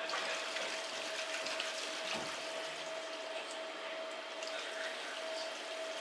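Toilet flushing above, with water rushing down the drain through the PVC elbow and cast-iron stack, heard from below as a steady rushing that sets in suddenly. It is a leak test of the toilet's newly fitted waxless seal.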